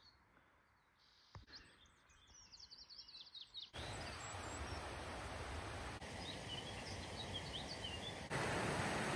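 Outdoor ambience: after a couple of seconds of near silence, a steady hiss of open air sets in with small birds chirping now and then. The hiss steps up louder near the end.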